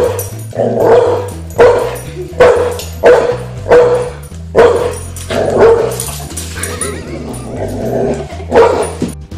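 A dog barking repeatedly, about ten sharp barks roughly one a second, with a short lull near the end before a last bark. Background music with a steady beat plays underneath.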